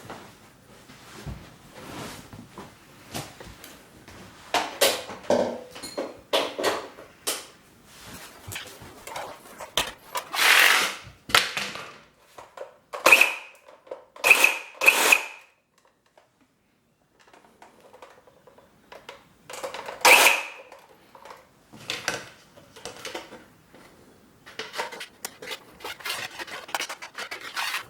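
A plastic IP68 cable connector on a hedge trimmer's power lead being handled and pulled to test the joint: irregular clicks, rubbing and a few short squeaky creaks, with a brief pause in the middle.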